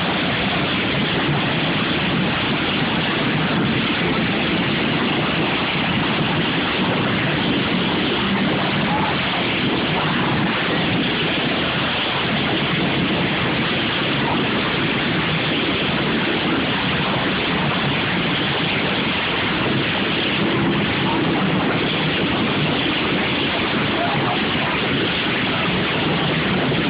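Several derby lawn mowers' small engines running together in a heat, forming a steady, dense din mixed with crowd voices.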